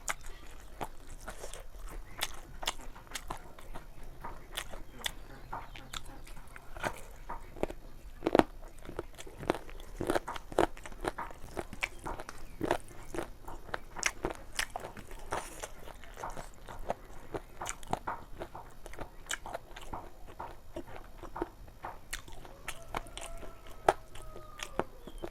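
Close-up eating sounds: chewing, biting and crunching of chicken curry, with irregular wet clicks and snaps several times a second. Near the end there is a brief falling whine.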